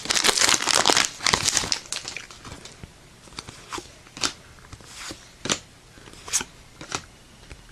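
Foil trading-card booster pack wrapper crinkling for about two seconds, then Yu-Gi-Oh cards being flicked through one at a time, a short sharp snap every half second to a second.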